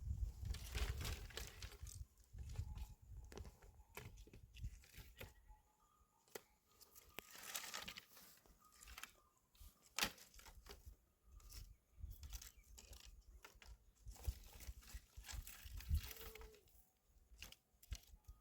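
Irregular crunching, rustling and sharp snapping of dry plant material, with one louder crack about ten seconds in.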